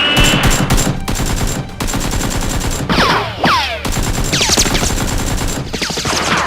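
Rapid automatic gunfire sound effect fired in bursts, with a few falling whistling sweeps about three and four and a half seconds in.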